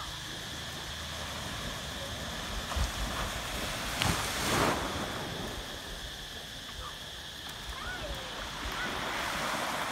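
Steady wash of small waves breaking on the shore, with wind on the microphone and faint children's voices. A brief louder rush comes about four seconds in.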